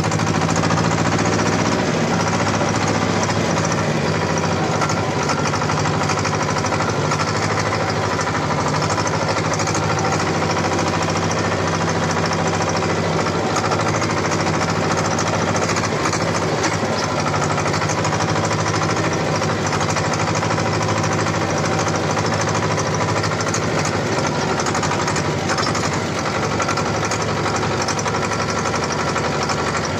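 The two-cylinder air-cooled diesel of a T-25 tractor runs loudly and steadily as the tractor drives along, heard from the driver's seat.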